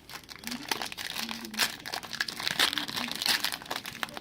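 Foil wrapper of a trading card pack crinkling, with dense irregular crackles as it is handled and pulled open.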